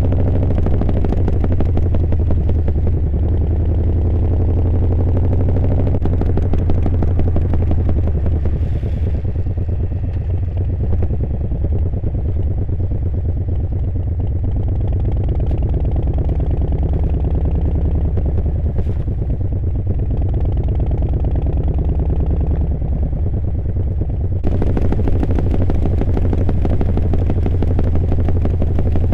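Harley-Davidson Milwaukee-Eight V-twin engine running under way on a ride, a steady low note that shifts about six seconds in. A steady hiss joins near the end.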